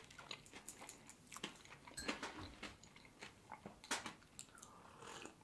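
Soft, faint chewing of a flaky puff pastry with pecans: irregular small crunches and mouth clicks. Near the end comes a sip of tea from a cup.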